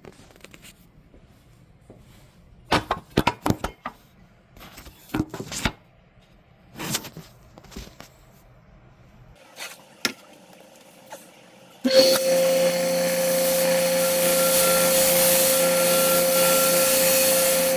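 Clicks and clatter of parts being handled and fitted. About twelve seconds in, the motor of a jerry-rigged disc sander starts suddenly and runs at a steady speed with a constant whine.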